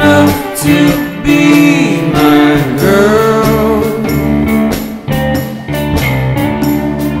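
Background music: a song with a singing voice sliding between notes over a steady bass line and beat.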